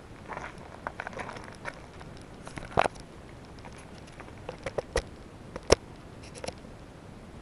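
Handling noise: scattered sharp clicks and knocks with light rustling, the loudest a sharp click nearly six seconds in. There is no motor hum, so the pressure washer is not running.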